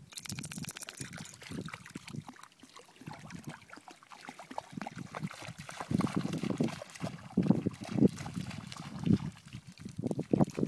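Irregular splashing and sloshing in shallow floodwater, growing louder and choppier about halfway through.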